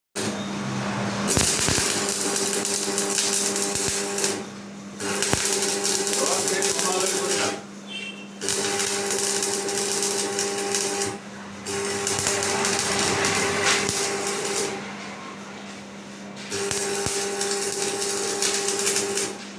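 Electric arc welding: the arc crackles and sizzles in five runs of a few seconds each, separated by short pauses, over a steady electrical hum from the welding machine.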